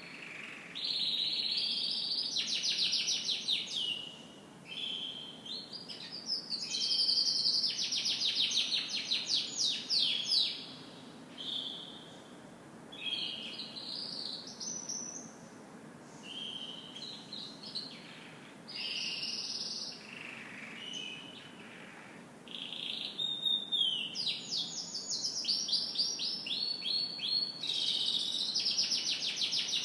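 Canary singing: long phrases of rapid trills and warbled notes, each phrase a few seconds long with short pauses between.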